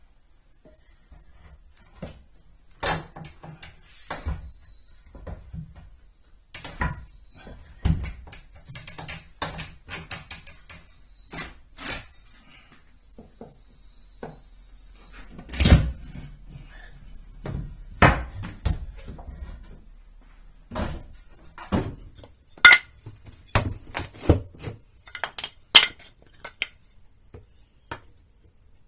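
Irregular clanks, clicks and knocks of metal parts and hand tools being handled and set down, one sharper knock about halfway through the loudest.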